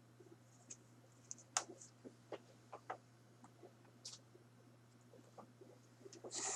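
Faint scattered clicks and light taps of plastic action figures being handled, over a steady low hum.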